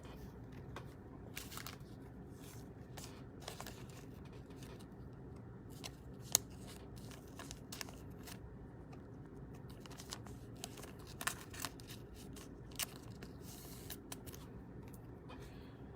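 Trading cards and card-pack packaging being handled: scattered light clicks, rustles and crinkles, with a sharper click about six seconds in and a small cluster near the two-thirds mark, over a faint low room hum.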